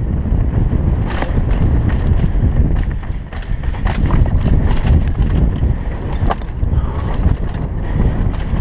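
Wind buffeting a helmet-mounted camera's microphone over the rumble of a downhill mountain bike's tyres on rocky dirt trail, with frequent sharp clatters as the bike hits rocks and roots.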